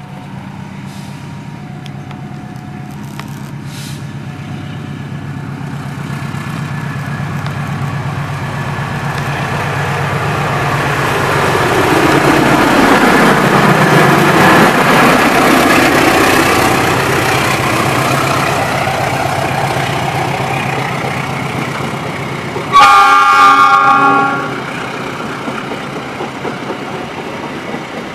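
GE CC206 diesel-electric locomotive approaching and passing at speed: a steady engine drone grows louder to a peak about halfway, its pitch dropping as it goes by, then the rumble of the passing coaches. Near the end a train horn sounds once, loud and multi-toned, for about a second and a half.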